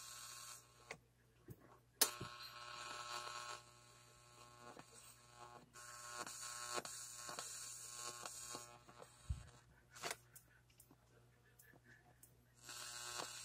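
Electrical buzz from a plasma ball, picked up by an instrument cable and played through an amplifier. It comes and goes in stretches of a few seconds over a steady mains hum, with a few sharp clicks.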